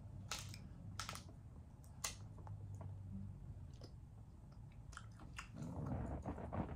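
Faint plastic candy wrappers being handled and pulled open: scattered sharp crinkles and clicks, thickening into a denser crackle near the end.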